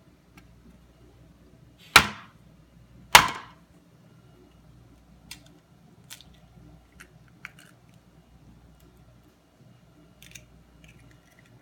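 A small chicken egg rapped twice against the rim of an aluminium sheet pan to crack it: two sharp knocks about a second apart, each with a short metallic ring. Several light clicks and taps follow as the shell is pulled open over the pan.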